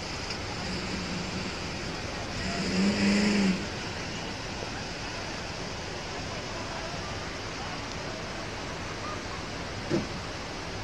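Off-road vehicle engine revving briefly about three seconds in, over a steady rush of river rapids. A sharp click near the end.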